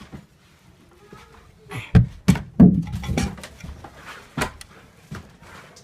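A series of heavy knocks and thumps, about half a dozen, the loudest around two to three seconds in.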